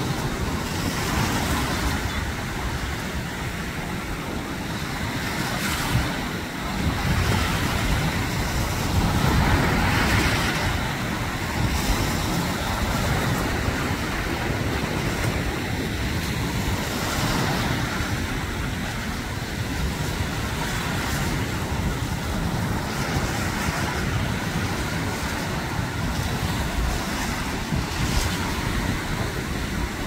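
Small surf breaking and washing through the shallows in a steady rush, with wind rumbling on the microphone.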